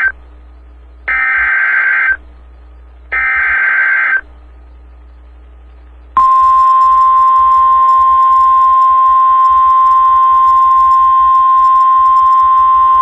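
NOAA Weather Radio EAS alert: the last two digital SAME header bursts, each a harsh buzzing screech about a second long, then about six seconds in the steady single-pitch 1050 Hz warning alarm tone starts and holds, signalling that a warning follows.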